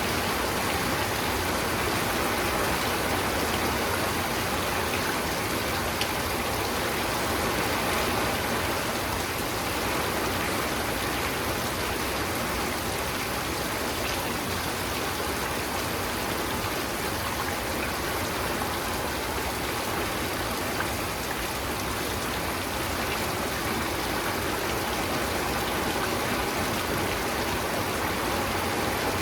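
Steady rainfall: a continuous, even hiss of rain with faint individual drops.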